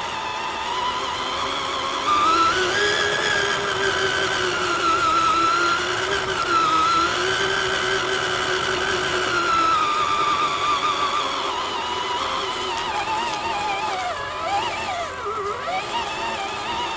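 RC truck's motor and gears whining as it drives, the pitch rising and falling together with the throttle and speed, wavering quickly near the end.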